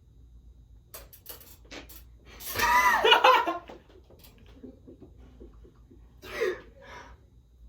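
A person's voice: a few faint clicks, then a loud vocal outburst about a second long with its pitch sliding up and down, and a shorter, quieter one near the end.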